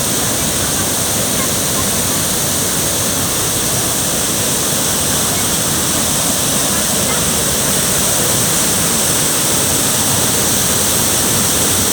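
Waterfall: falling water rushing steadily and loudly, without a break.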